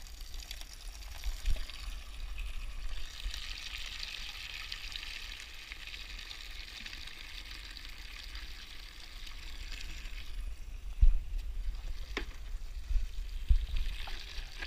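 Water running from a rain-water butt's tap into a bucket, frothing up soapy suds. The flow stops about ten seconds in, a few knocks follow as the bucket is handled, and the water runs again near the end.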